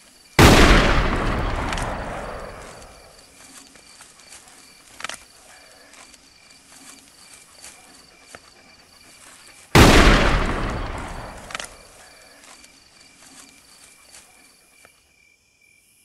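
Two rifle shots about nine seconds apart, each followed by a long rumbling echo that dies away over about two seconds.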